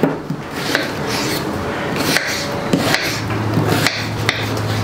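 Kitchen knife slicing a white onion on a wooden cutting board, the blade knocking on the board now and then. A low steady hum comes in about three seconds in.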